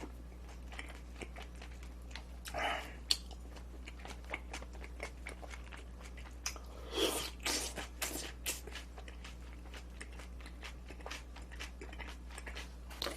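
Close-up chewing of a mouthful of pickled radish wrap with smoked duck, onion and pickles, heard as many crisp crunching clicks. The crunching grows louder about two and a half seconds in and again around seven to eight seconds.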